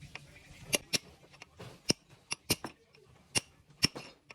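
Sharp metal clinks and clicks of tools and parts being handled, irregularly spaced, about ten in four seconds.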